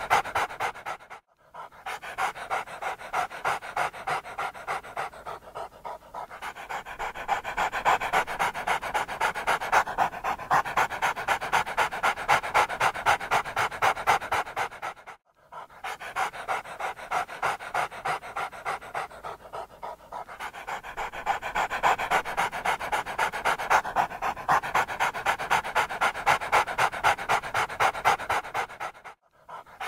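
Dog panting rapidly and steadily, about three breaths a second. It cuts out briefly about a second in and again about halfway through.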